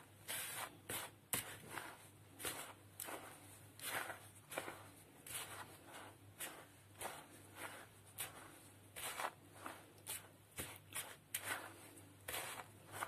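A hand rubbing and tossing a dry, crumbly mix of flour, semolina and ghee in a plastic bowl: soft, irregular swishing strokes, about one or two a second.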